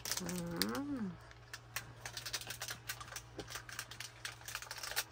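Foil and plastic wrappers of mini alfajores crinkling and crackling in a run of small clicks as they are unwrapped. A brief wordless voice sound rises and falls about a second in, over a faint steady low hum.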